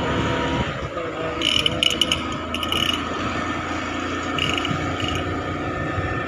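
A two-wheeler's engine and road noise while riding, heard from the pillion seat. There are two spells of rapid rattling clicks, one about a second and a half in and another about four and a half seconds in.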